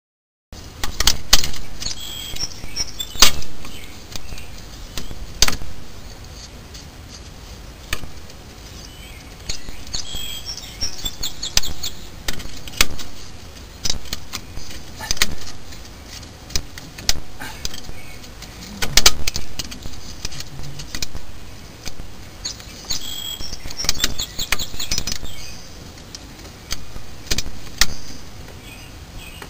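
Hand tools clinking and knocking on metal brake parts: irregular sharp clanks, a few ringing briefly, spaced a second or two apart.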